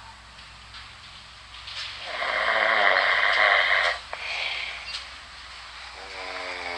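A person snoring: one long, noisy snore lasting about two seconds, starting about two seconds in, then a shorter breath about a second later.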